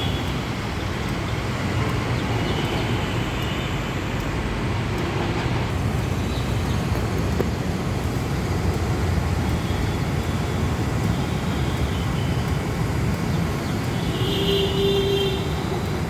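Steady road traffic noise, a continuous low rumble of passing vehicles, with a brief higher tone sounding about 14 seconds in.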